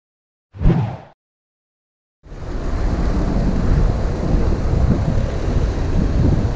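Wind buffeting a handlebar camera's microphone on a moving bicycle, with a low street and traffic rumble. It starts about two seconds in, after silence broken by one short burst of sound about half a second in.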